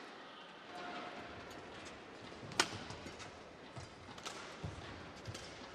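Badminton rally on an indoor court: a racket strikes the shuttlecock with a sharp crack about two and a half seconds in, followed by lighter racket hits and players' footfalls over faint arena hum.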